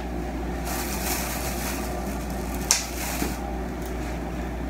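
Steady low hum with two short stretches of hiss and one sharp click a little past halfway, the loudest moment.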